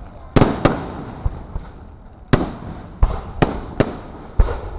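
Aerial firework shells bursting: about seven sharp bangs at uneven intervals, two close together near the start and a cluster from about two seconds in, each trailing off in an echo.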